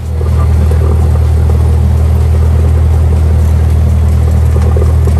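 Piston engine and propeller of a single-engine light aircraft running at a steady speed, a loud even low drone inside the cabin.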